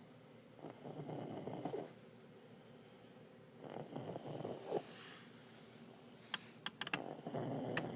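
A baby snoring, with three snores about three seconds apart. A few sharp clicks come near the end.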